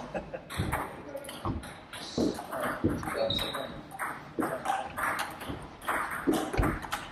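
Table tennis ball clicking back and forth off the bats and the table in a rally, a quick run of sharp ticks, with further ball clicks from other tables in play.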